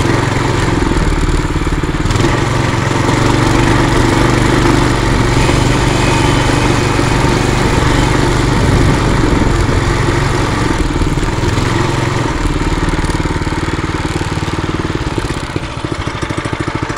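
Trail Master MB200 mini bike's small single-cylinder four-stroke engine running steadily under throttle while the bike is ridden. About twelve seconds in the engine note drops, and it grows quieter toward the end as the throttle comes off.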